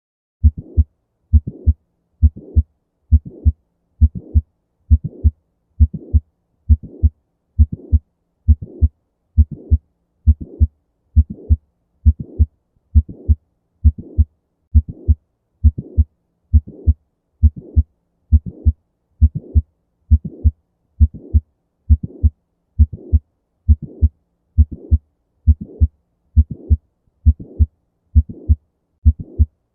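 Recorded heart sounds of mitral valve prolapse: a steady heartbeat at about 65 beats a minute, each beat heard as a pair of close low thuds, the sound of a leaky mitral valve with its murmur.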